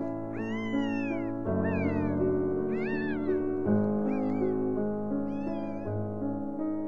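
Newborn puppies crying: about five short, high-pitched squeals that rise and fall, each under a second long. They sound over soft piano background music.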